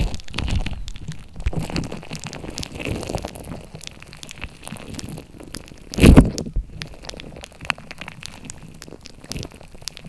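Slime being squished and poked by hand: a run of small sticky clicks and pops, with one louder squelch about six seconds in.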